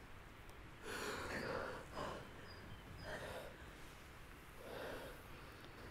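Close, shaky human breathing: four soft, airy breaths about a second apart, sniffly and emotional.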